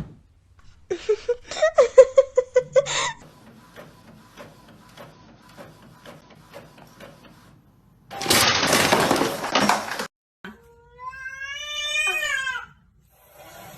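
A cat meowing: a quick run of short cries near the start, and later one long meow that rises and falls in pitch. Between them comes a loud noisy crash lasting about two seconds.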